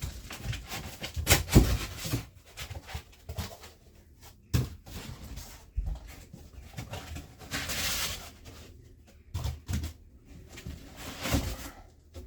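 Cardboard box and packing being handled: irregular knocks and thumps, with a stretch of rustling and scraping about eight seconds in.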